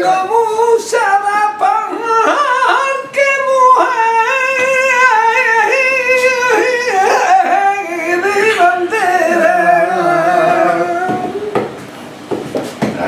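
Man singing flamenco cante por colombianas: long held, wavering melismatic lines without words. The singing breaks off near the end, and a few sharp knocks follow.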